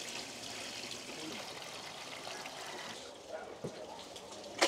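Water trickling steadily over a wet sluice, with a short sharp noise near the end.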